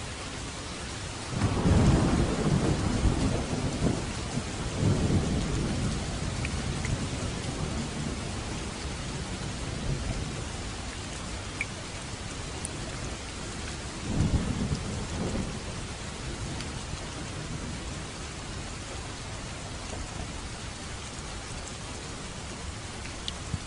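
Steady rain with rolls of thunder: a long low rumble begins about a second and a half in, a second follows around five seconds, and a shorter one comes near fourteen seconds.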